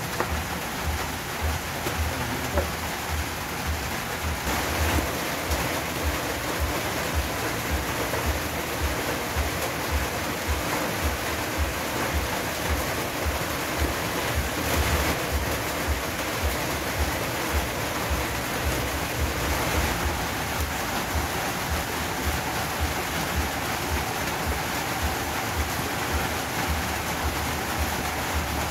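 A cleaver chopping chayote and yardlong beans on a plastic cutting board, with many quick, irregular low thuds, over a steady rushing noise.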